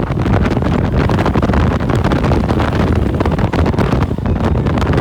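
Wind buffeting the microphone and the steady rumble of the open Test Track ride vehicle running at high speed during its power test.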